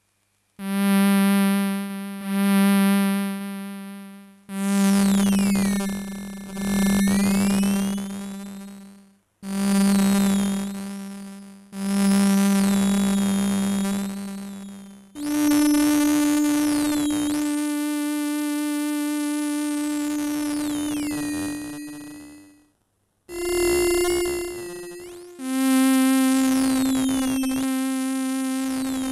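Electronic tones run through a Bugbrand Bug Crusher, its light-sensor 'Eye' modulating the effect and the filter cutoff. A series of low pitched notes, each starting sharply and fading, then a few longer held notes at higher pitches, with the upper overtones sweeping up and down. There is a brief break shortly before the end.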